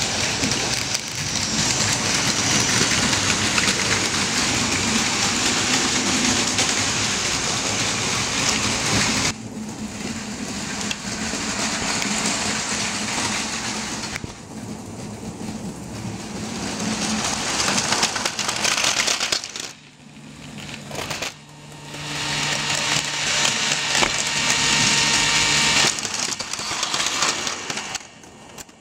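Plarail Advance motorized toy Shinkansen trains running on plastic track: a dense, rain-like rattle of motors and wheels on the plastic rails. The level drops and rises abruptly several times, and a low steady hum comes in for a few seconds past the middle.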